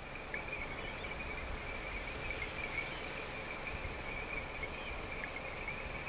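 Insects calling in one steady, unbroken high-pitched drone over faint forest ambience.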